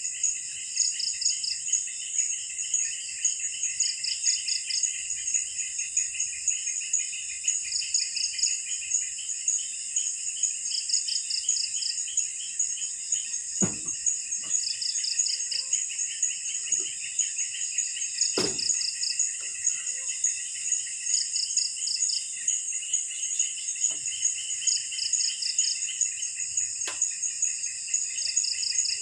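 Dusk chorus of forest insects such as crickets: a steady high buzzing, with a short pulsed trill repeating every three to four seconds. A few sharp knocks, two of them louder, come about halfway through.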